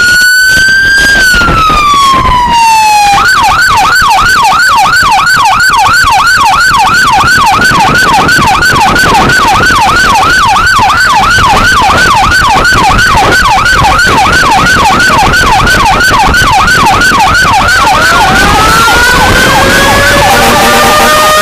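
Fire truck siren sounding on an emergency response. A wail tone falls away in the first few seconds, then switches to a fast yelp of about three sweeps a second, and climbs back into a rising wail near the end.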